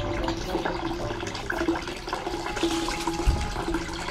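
Water running steadily from a spout into the stone basin of a shrine purification fountain (temizuya).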